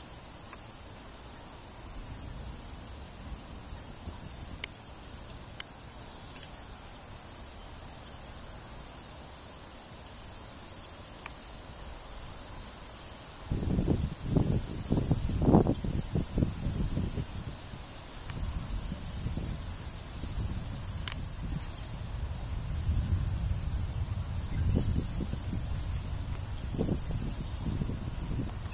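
A high-pitched insect chorus shrilling in repeated phrases about a second long with short breaks. From about halfway, wind buffets the microphone in low rumbling gusts.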